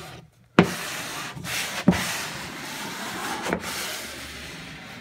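Plastic wallpaper smoother rubbing and scraping across wallpaper as it presses a lifted seam back into place, with three sharp clicks spaced a second or so apart.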